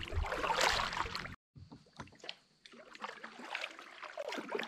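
Kayak paddle strokes in calm water: the blades dip, pull and splash, with water dripping off them. About a second and a half in, the sound cuts out briefly, then softer paddle strokes follow.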